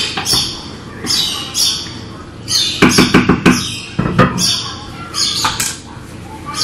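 A pot and its lid knocking against a ceramic hob: a quick clatter of several knocks about three seconds in and one more just after. Short high chirps repeat throughout.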